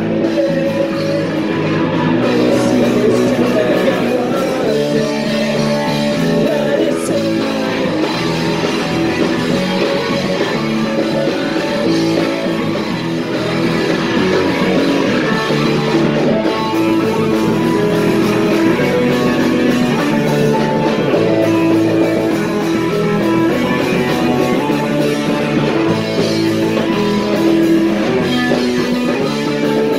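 Live punk rock band playing loud, dense rock music led by electric guitar.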